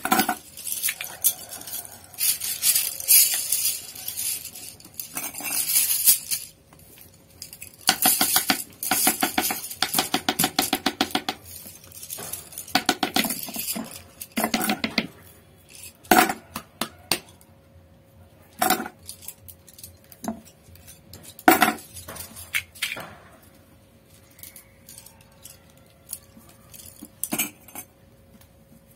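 Metal brush ferrules and hand tools clinking and tapping against a wooden work block as flat brushes are assembled by hand, with scattered single clicks and several quick runs of rapid, even taps.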